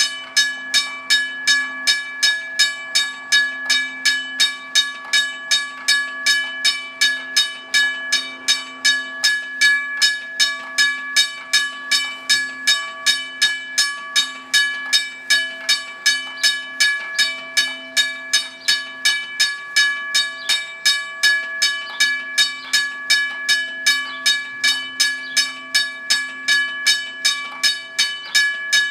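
Railroad crossing bell ringing steadily, about two strokes a second, each strike leaving a bright metallic ring.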